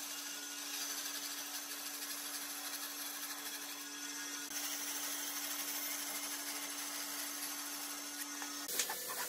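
Stationary band saw running with a steady motor hum, its blade cutting through a wooden block with a hiss. Near the end the hum stops and uneven scraping strokes begin.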